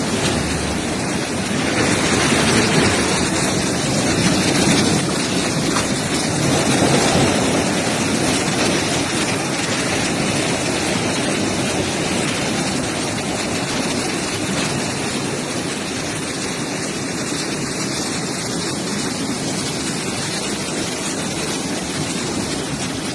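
Torrent of muddy floodwater from a debris flow rushing past, a steady loud rushing noise that swells a little in the first few seconds.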